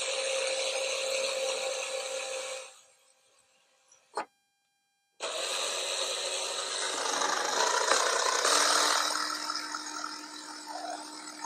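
Drill spinning a paddle-type paint mixer attachment in a bucket of water, a steady running whine. It stops about three seconds in, followed by a click and a short gap, then runs again for about six seconds.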